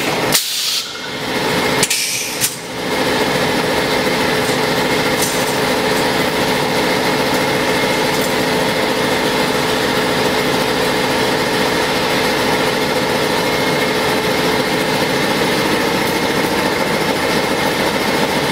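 Automatic spiral-wire fan grill welding machine: crackling welding bursts in the first three seconds, then steady machine running noise with a constant hum.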